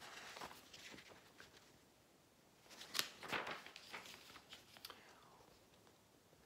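Faint paper rustling and crinkling as a homemade booklet's card cover is opened and its pages handled, with a sharper crinkle about three seconds in.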